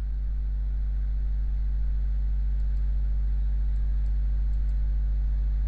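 A steady low hum, with a few pairs of faint computer-mouse clicks about halfway through.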